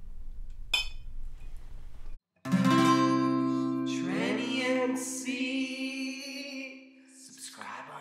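Acoustic guitar music with a sung voice, starting suddenly about two and a half seconds in and fading toward the end. Before it there is a low room hum and one short clink.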